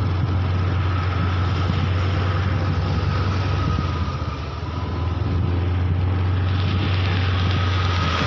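Steady low drone of a vehicle engine running at low speed, mixed with road and wind noise, dipping slightly for a moment about halfway through.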